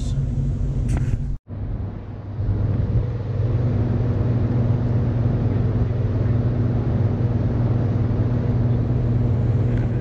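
Steady low drone and electrical hum of Hoover Dam's hydroelectric generators running in the generator hall, with a steady low tone held underneath. The sound drops out for an instant about a second and a half in.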